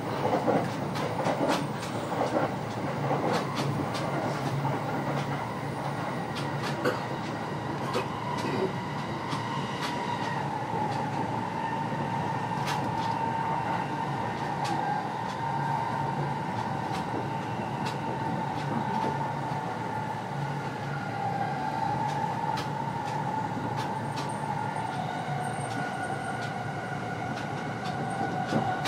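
Limited express train running at speed, heard from inside the carriage: a steady rumble of wheels on track with scattered clicks over the rail joints. A steady whine becomes clear about ten seconds in and holds, dropping slightly in pitch near the end.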